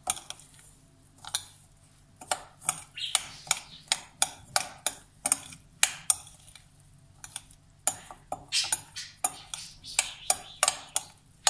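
Metal spoon stirring damp fine bulgur in a textured glass bowl, clinking and scraping against the glass in irregular strikes, about two or three a second, after a quieter first second. The bulgur has just been wetted with hot water.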